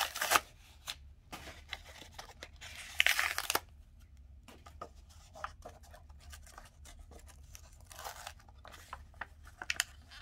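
Plastic wrapping of a 1987 Donruss baseball card rack pack being torn open and crinkled, in short bursts at the start, about three seconds in and about eight seconds in. Between them, light clicks and rustles as the stack of cards is handled.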